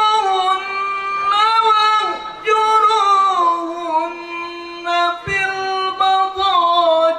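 A man's high voice chanting Quran recitation in the melodic tilawah style: long held notes joined by ornamented slides, in a few phrases with short breaths between them.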